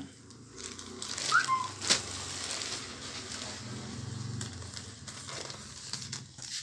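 Plastic courier packaging rustling and crinkling as it is handled, with a sharp click about two seconds in and a brief high chirp just before it.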